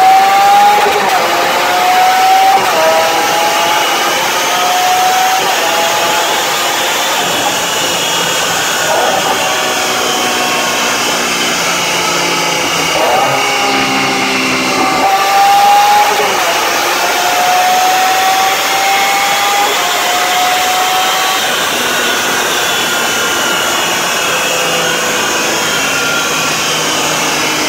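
Lamborghini Aventador LP700-4's V12 pulling at full throttle on a chassis dyno. Its pitch climbs in several long sweeps, each cut off by a sudden drop at a gear change, over a steady rush of air from the cooling fans. In the last several seconds the engine tone fades and the air rush carries on.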